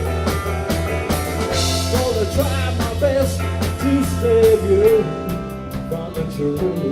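Live rock band playing an instrumental passage: a steady drum beat, bass and guitar, with a bending lead melody over them. The bass note drops out about five seconds in.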